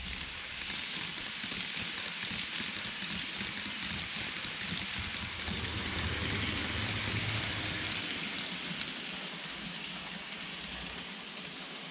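N-gauge model trains running on metal track: a steady rolling rattle of small metal wheels with fast clicking over the rail joints. It swells in the middle as a second train passes close by, then eases off toward the end.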